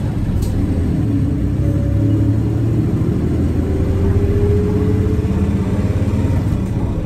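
Nissan Diesel Space Runner RA city bus's diesel engine running under way, with a low steady rumble. A tone climbs steadily through the second half as the bus picks up speed.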